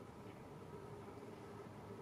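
Faint, steady outdoor background hum and hiss with no distinct event.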